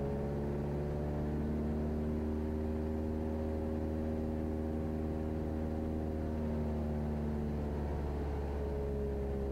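Cessna 172's piston engine held at idle during a simulated engine failure, the propeller turning over in a steady, even drone heard inside the cabin.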